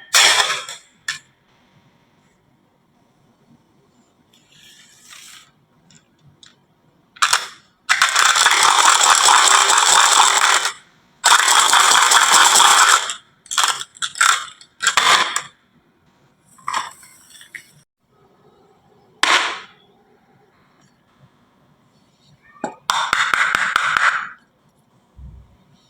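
Marbles rolling and clattering down a toy marble run, in several loud runs of one to three seconds with sharp clicks and knocks between as they drop and hit the track pieces.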